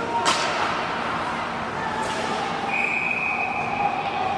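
Ice hockey game noise in a rink: a steady wash of arena sound with a single sharp knock about a third of a second in, then a steady high tone held for about a second and a half near the end.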